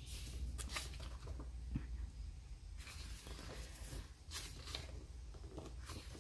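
Pages of a large photobook being turned and handled by hand: a few short, soft paper swishes and rustles.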